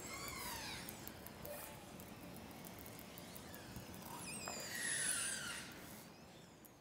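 Hydrophone recording of a pod of orcas under sea ice, played back over a hall's speakers. Rapid echolocation clicks run over a steady hiss, with falling, many-harmonic calls: one just after the start and a louder set about four to five seconds in.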